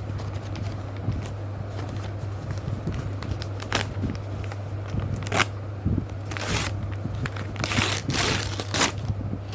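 Courier packaging being crinkled and torn open by hand to get at a pair of sunglasses, in several separate rustling bursts that grow busier after the first few seconds.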